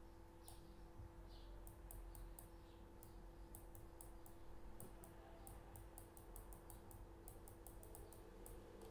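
Faint, irregular clicking and tapping from the computer pointing device being used to hand-write words on screen, several clicks a second, over a steady low electrical hum.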